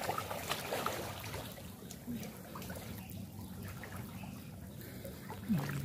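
Water trickling and splashing lightly as people wade and feel for fish by hand, busiest in the first second and a half, then settling to a quieter trickle.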